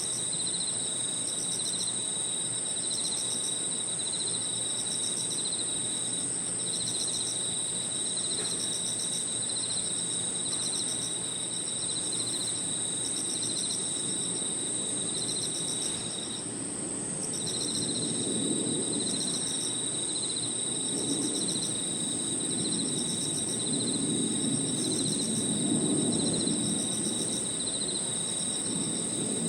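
Crickets and other insects singing together: a steady high-pitched trill with several layers of rapidly pulsing chirps over it, one of them pausing for about a second midway. A low background rumble grows louder in the second half.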